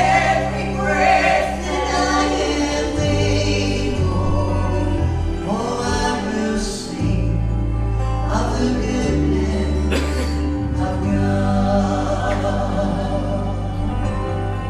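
Gospel vocal group singing with instrumental accompaniment, held bass notes changing every second or two beneath the voices.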